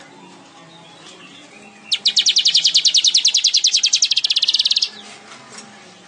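Manyar (weaver bird) singing a loud, fast trill of evenly repeated notes that starts about two seconds in and lasts nearly three seconds.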